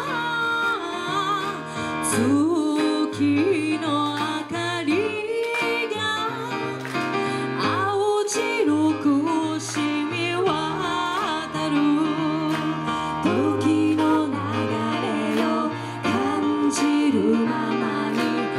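Okinawan song performed live: a woman singing a bending melody over plucked-string accompaniment and a steady bass line.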